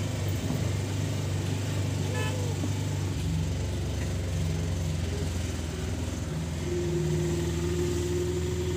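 Auto-rickshaw engine running steadily as the rickshaw drives along, with wind and road noise through its open sides. A steady higher tone joins for about the last two seconds.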